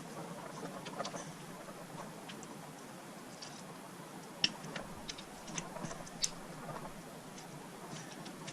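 Irregular light clicks and taps over a quiet background hiss, two of them sharper, about halfway through and near two-thirds of the way.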